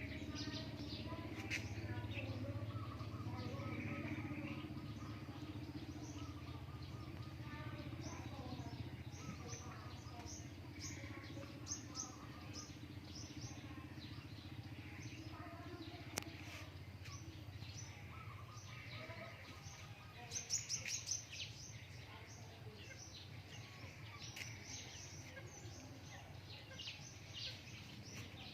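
Small birds chirping: many short high chirps scattered throughout, with a quick run of louder chirps about two-thirds of the way in, over a steady low hum.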